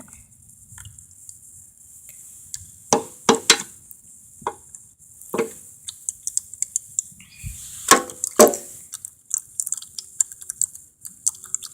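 Irregular small clicks and several louder knocks and clunks, from hard objects being handled and set down while working on a mower's oil change.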